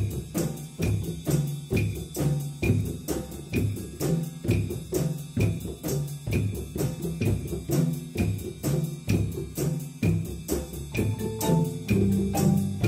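School percussion ensemble playing a steady, driving beat on hand drums, drum kit and bass drum, over a repeating low bass line. Near the end, marimba notes come in above the drums.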